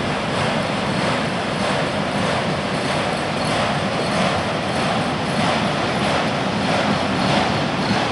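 Autorack freight cars rolling past: a steady rumble of steel wheels on the rails with repeated clicks as the wheels cross rail joints.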